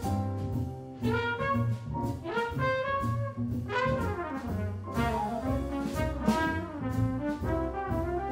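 Live jazz quartet: a trumpet plays a quick melodic line of short notes over double bass, piano and drums, with cymbal and drum strokes running through.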